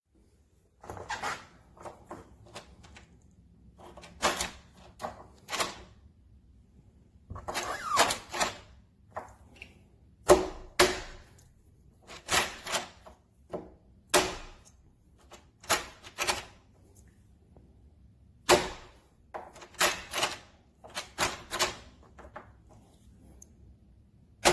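Metal door lock hardware being worked: a long run of sharp clicks and clunks at irregular intervals, often in quick pairs.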